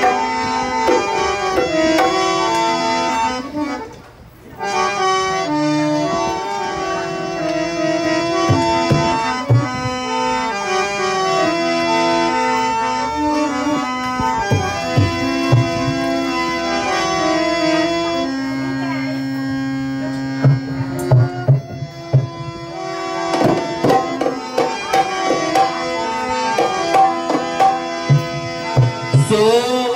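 Instrumental introduction: a harmonium plays a melody in held, stepping notes, accompanied by tabla with deep drum strokes. There is a brief break about four seconds in.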